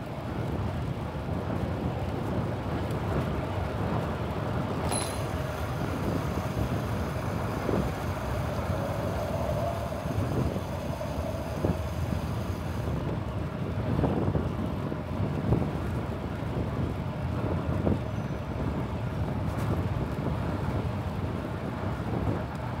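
Wind rumbling on the microphone of a chest-mounted camera while cycling, with road traffic noise.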